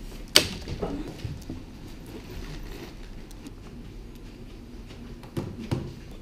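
A clear plastic bag of yarn balls handled close to the microphone: one sharp crackle about half a second in, then softer rustles and knocks, with faint voices in the room.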